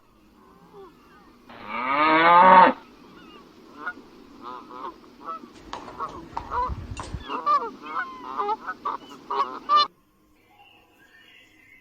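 One long moo from cattle about a second and a half in, the loudest sound, followed by a flock of waterfowl honking over and over in short calls for about six seconds, cutting off suddenly near the end.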